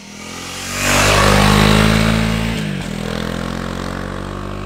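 Honda CRF300L's single-cylinder four-stroke engine as the bike rides past on a lane. The engine note builds to its loudest about a second in, dips briefly in pitch around halfway, then runs on steadily as the bike pulls away.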